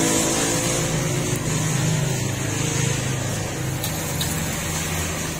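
Steady low mechanical hum with an even high hiss running under it.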